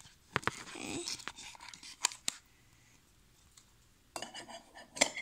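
Handling noise from unboxing trading-card packaging: a few sharp clicks and rustles in the first two seconds, a quiet stretch, then a quick cluster of clicks and rustling from about four seconds in.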